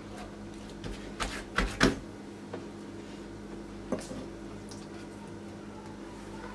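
A few sharp clicks and knocks as hands work thin, oiled dough across a wooden board, a quick cluster about a second in and one more about four seconds in, over a steady low hum.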